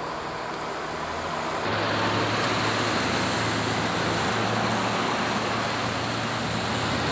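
Steady low engine hum with hiss, like a motor vehicle running close by. It gets louder about two seconds in.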